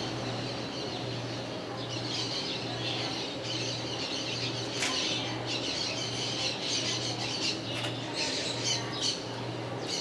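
Birds chirping and squawking in chattering bursts from about two seconds in, over a low hum that pulses roughly once a second, with an occasional click.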